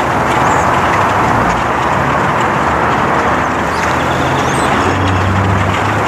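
Massed calls of a huge flock of birds blurring into a dense, steady din, with short high chirps standing out. Beneath it is a low hum of traffic, with an engine hum growing stronger about five seconds in.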